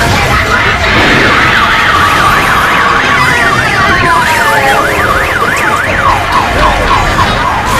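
A siren warbling in a fast up-and-down sweep, about three or four cycles a second, over a loud rushing noise. Near the end the warble drops to a lower pitch.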